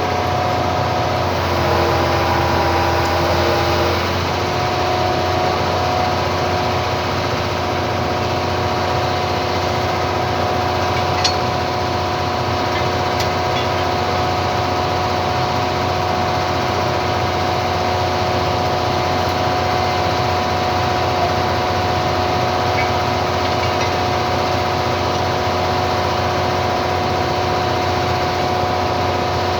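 Hitachi excavator's diesel engine running steadily at a constant speed, a continuous hum with a steady tone that shifts slightly a few seconds in and then holds.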